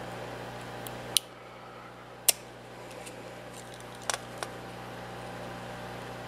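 A few sharp clicks and taps as small metal hardware is handled and fitted into a 3D-printed plastic extruder body, over a steady low hum.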